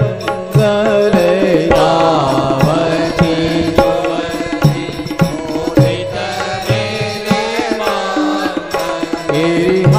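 Indian devotional music: a steady held drone under a melody line that glides in pitch, with hand-drum strokes at irregular intervals.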